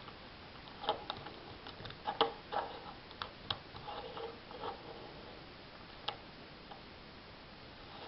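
Lego puzzle box handled in the fingers: plastic bricks and plates clicking and rattling against each other, a run of small clicks over the first few seconds and one more sharp click a little later.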